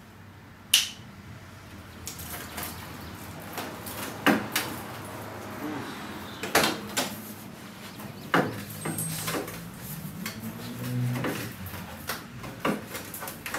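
Irregular sharp clicks, knocks and scraping from hand tools working at the plastic cover over a rusted jack point on a car body, the loudest knock about a second in.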